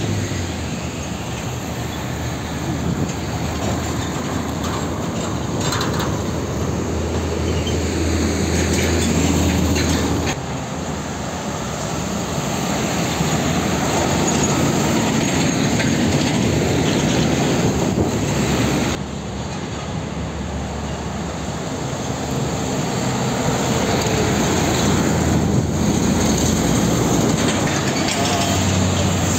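Heavy diesel container trucks passing close by on a busy road, engines running and tyres rumbling in a steady traffic din. The sound drops suddenly twice, about ten and nineteen seconds in.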